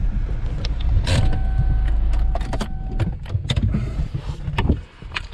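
Car cabin with the engine and tyres rumbling; an electric window motor hums steadily for about two seconds, then a series of sharp clicks and knocks follows and the rumble drops away near the end.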